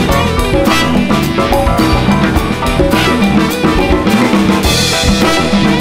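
Live band playing an upbeat rock groove: a drum kit keeps a steady beat under electric guitar, with trumpet and saxophone in the mix.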